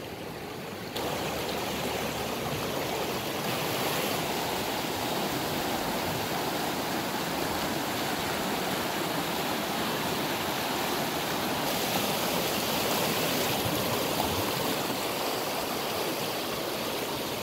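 A fast creek rushing over rocks in whitewater rapids: a steady, full rush of water that gets louder about a second in.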